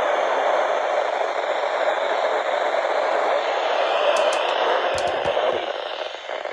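Steady radio static hiss between broadcast messages, with a few short clicks about four to five seconds in.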